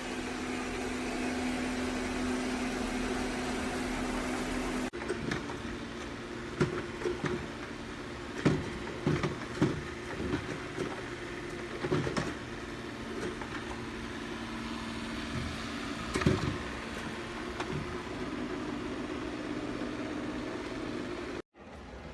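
Robot vacuum running with a steady motor hum. After an abrupt cut about five seconds in, a lower hum carries a scatter of irregular sharp knocks and clicks.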